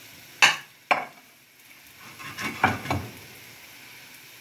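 Pancakes sizzling in butter in a frying pan. A slotted spatula knocks against the pan twice, about half a second apart, then clatters a few times near three seconds in.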